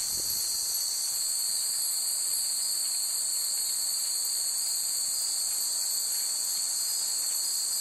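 Steady, high-pitched chorus of insects: a continuous shrill drone with no breaks.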